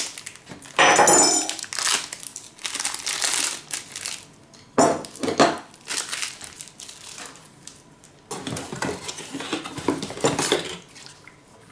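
Plastic packaging crinkling and rustling in several irregular bursts as a shaver's charger is unwrapped and the box is handled, with small knocks of items set down on a wooden table.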